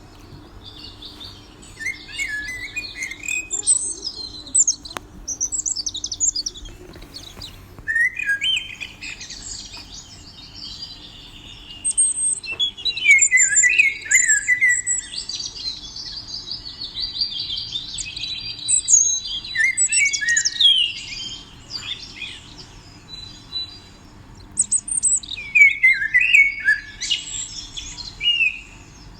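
Small songbirds chirping and twittering in repeated bouts of quick, high trills and chirps, with short pauses between the bouts.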